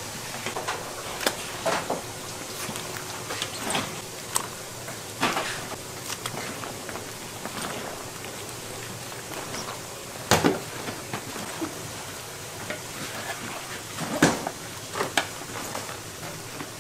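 Kitchen work in a food shop: scattered knocks and clinks of utensils and containers over a steady background hiss, with the loudest knocks about ten and fourteen seconds in.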